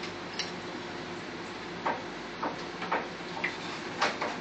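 Knife cutting cucumber on a plastic chopping board: short, sharp taps at irregular intervals, about seven of them.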